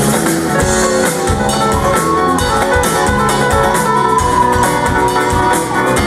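Live pop-rock band playing an instrumental passage: guitar over a steady drum-kit beat, with a held lead note in the middle.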